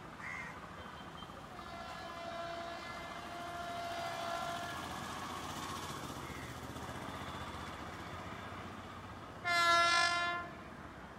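Horn of an approaching WAP-7 electric locomotive: a long, fainter blast of several seconds starting about a second and a half in, then a loud blast about a second long near the end. The train's running noise sounds underneath.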